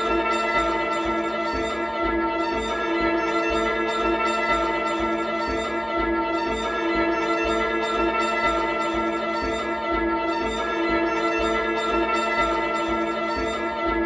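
Live ambient electronic music: a sustained drone chord of many held tones with a flickering high shimmer over it.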